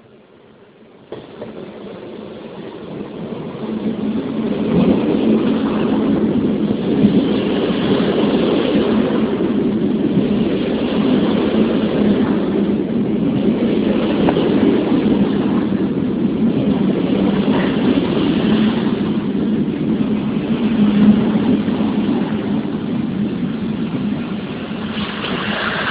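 Beneluxtrein passenger train rolling into the platform, with the steady rumble of its coaches' wheels on the rails. It grows louder over the first few seconds as the train comes close. A high squeal sets in near the end as the train slows.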